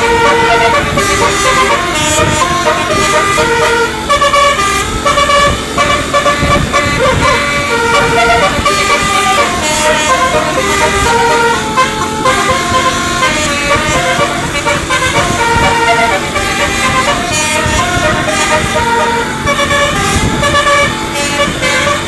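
Basuri telolet musical bus horn playing a quick tune, with held notes stepping rapidly from pitch to pitch and running on without a break.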